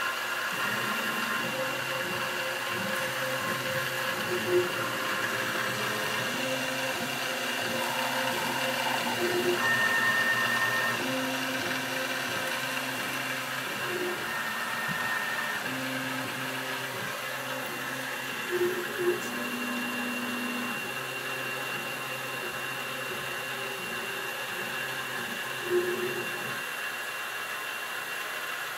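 CNC-converted G0704 benchtop mill drilling a polycarbonate sheet with a 2.5 mm drill bit: the spindle motor runs with a steady whine while the stepper motors drive the axes in short moves, each with its own pitch. A few brief louder spots come as the bit works into the plastic.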